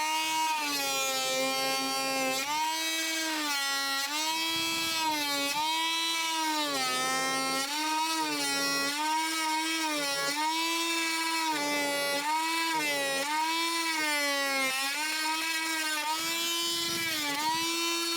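Oscillating multi-tool with a high-carbon-steel wood blade plunge-cutting wood: a steady high motor-and-blade whine whose pitch sags and recovers every second or two as the blade is pressed into the cut and eased off.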